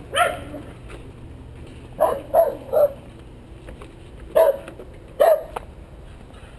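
American Eskimo dog barking about six times: one bark, a quick run of three about two seconds in, then two more further on.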